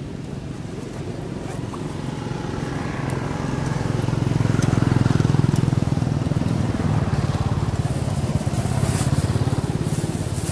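A motor vehicle's engine running, growing louder about four seconds in, easing off, then swelling again near the end, as vehicles pass by.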